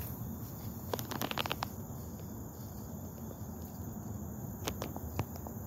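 Outdoor insect chorus, crickets or similar, chirring steadily in the background, with a few light clicks and rustles about a second in and again near the end.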